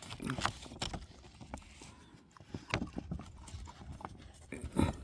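Handling noise: a run of irregular light knocks and clicks as a paper target is picked up and held up, the loudest knock near the end.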